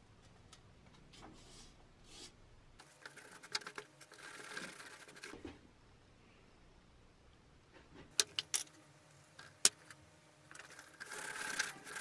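Handling noises on a steel Adrian helmet: scattered light clicks and taps, a few seconds of rustling about three seconds in, and a few sharp clicks around eight to ten seconds in. Near the end a scouring pad starts scrubbing the helmet's surface with a steady rasping rub.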